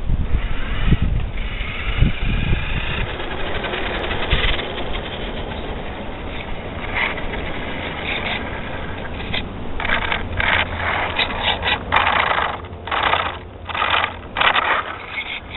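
Traxxas Bandit VXL electric RC buggy: brushless motor whine and tyre noise on asphalt. In the first few seconds low rumbles and thumps hit the ground-level microphone. Over the last five seconds the buggy is close by, and the motor and tyre noise comes in a run of short on-off bursts.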